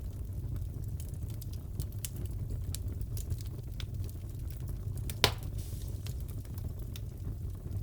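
Wood fire crackling in a fireplace: a steady low rumble with scattered small crackles, and one sharp, louder pop about five seconds in.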